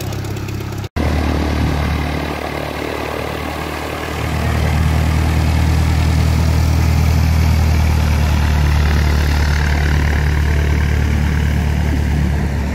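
Single-engine light aircraft's piston engine and propeller running steadily at low power. About four seconds in it gets louder as power is added and the plane taxis away. There is a brief dropout of all sound about a second in.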